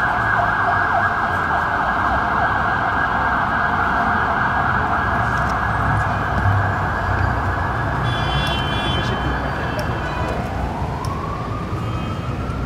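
Emergency vehicle siren sounding a rapid yelp, switching about ten seconds in to a slower wail that rises in pitch, over a low rumble of traffic.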